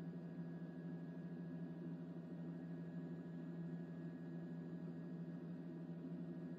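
A steady low hum with a few fainter high tones, unchanging, with no scrape or impact heard.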